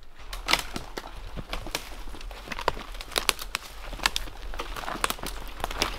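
Footsteps crunching through dry forest undergrowth, with many quick, irregular twig snaps and brush rustling as walkers push through the branches.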